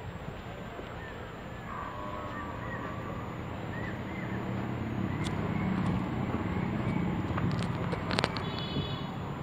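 Outdoor ambience: a steady low engine rumble that swells around the middle, with a few faint chirps and a cluster of sharp clicks near the end.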